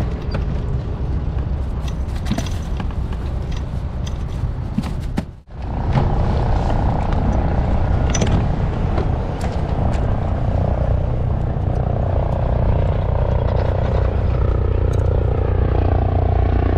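A low, steady engine drone, with scattered clicks and scrapes in the first few seconds. The sound cuts out briefly about five seconds in, then returns steadier and a little louder.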